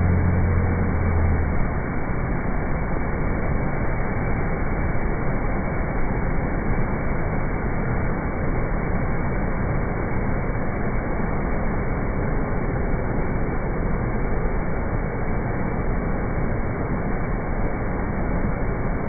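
Heavy floodwater pouring through the open gates of a river barrage: a loud, steady rushing noise. A low hum sounds briefly in the first second or two.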